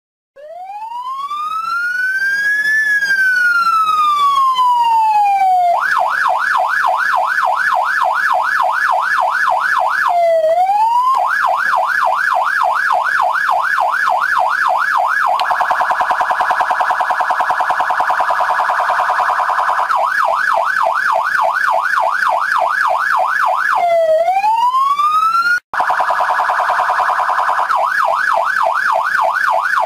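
Police car electronic siren cycling through its tones: a slow rising and falling wail, then a fast repeated yelp, a rapid warble, and yelp again, with a second wail rise and a brief drop-out near the end.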